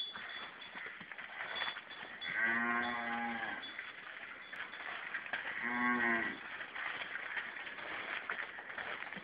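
A cow mooing twice: a longer call a couple of seconds in and a shorter one about three seconds later.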